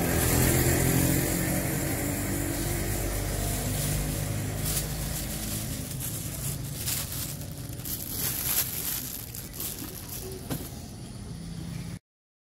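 Street traffic: a motor vehicle's engine hum passing close by, loudest in the first couple of seconds, then steadier traffic noise with a few short rustles. It cuts off abruptly near the end.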